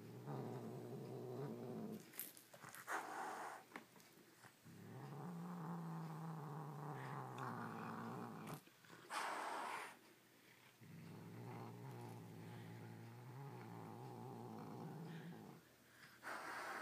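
Domestic cat growling low and long as it guards a toy, in three drawn-out growls broken by short hisses.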